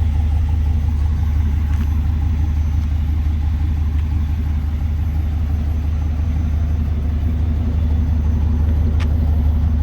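Vehicle engine idling: a steady, even low rumble with no change in speed.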